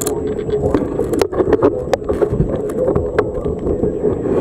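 Hailstones pelting a roof in a hail storm: many irregular sharp clacks over a steady rush of falling hail.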